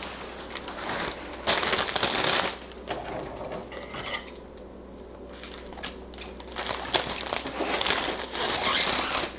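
Plastic wrapping from a flower bouquet crinkling as it is handled and pulled away, in two louder spells with a quieter stretch in the middle.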